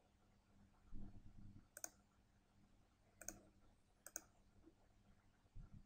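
Three faint, sharp computer mouse button clicks, about a second or so apart, over a low steady hum.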